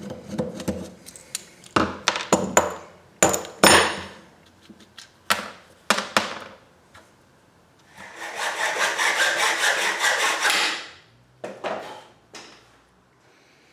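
Workshop tool sounds from taking apart and cutting down an old rifle scope. First come scattered sharp knocks and clanks of handling, then a steady stretch of cutting noise lasting about three seconds, then a few more knocks.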